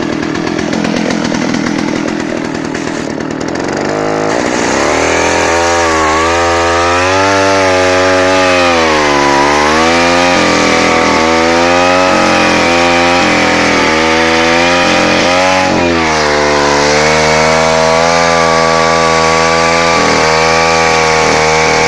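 Two-stroke engine of a Ural chainsaw running, its speed rising and falling over and over as the throttle is worked, with a couple of deeper dips.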